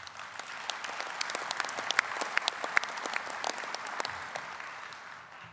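Audience applauding, the clapping dying away over the last second or so.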